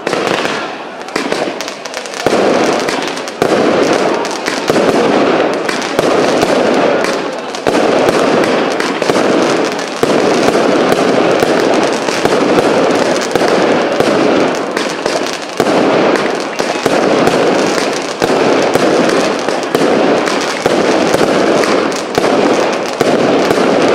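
A fireworks cake (a multi-shot battery) firing a rapid, continuous barrage of launches and small aerial bursts, shot after shot without a break.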